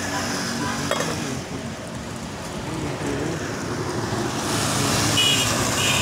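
Motor vehicle engine and road noise, continuous, growing louder with more hiss about four and a half seconds in; a few short high-pitched beeps near the end.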